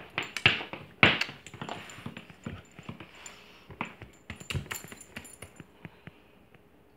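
A whippet moving against a person, with rustling and sharp knocks, the loudest about a second in. The metal tag on its collar jingles on and off.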